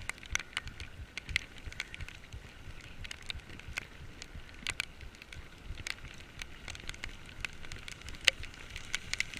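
Heavy rain during a bicycle ride: a dense, irregular crackle of ticks and spatters over a low rumble, the sharpest crack a little past eight seconds in.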